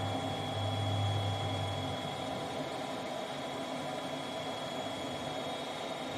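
Gas furnace's draft inducer (exhaust fan) running with a steady whoosh while the igniter warms up, before the gas valve opens. A low hum is strong for the first two seconds and then fades.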